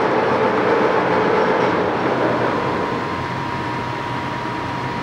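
Sidney Model 16 engine lathe running under power, a steady mechanical whir from its herringbone-geared headstock. About three seconds in the sound eases and gets quieter, and a thin steady whine is heard.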